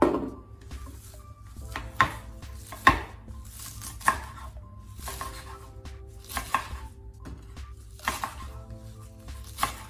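Chef's knife chopping sunflower and buckwheat sprouts on a wooden cutting board, in uneven strikes about once a second. A sharp clink at the very start, as a glass bowl is set down on the counter.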